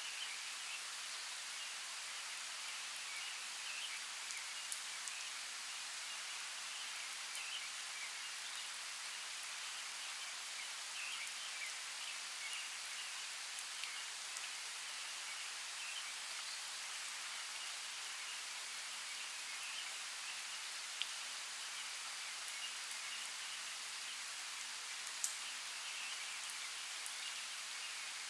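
Steady rain hiss with faint birds chirping scattered throughout, and a few sharp drip-like ticks, the loudest about 25 seconds in.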